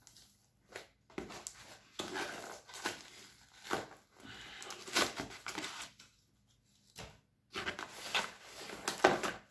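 Cardboard shipping box being handled and opened: the flaps scraping and crinkling in irregular bursts, with short pauses about four seconds in and again around six to seven seconds in, loudest near the end.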